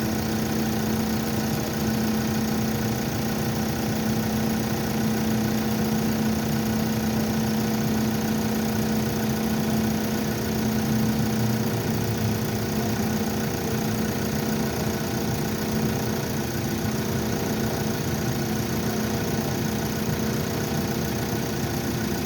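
An engine idling steadily with an even hum.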